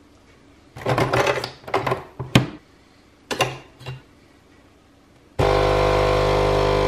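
Nespresso capsule coffee machine being handled, with clattering and a few sharp clicks. About five seconds in its pump starts with a loud, steady buzz as it brews coffee into the cup.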